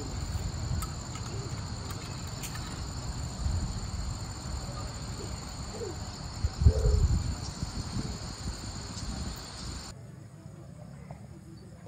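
Insects chirring steadily in two high, even tones that cut off suddenly near the end. Underneath is a low rumbling noise, with a louder low thump a little past the middle.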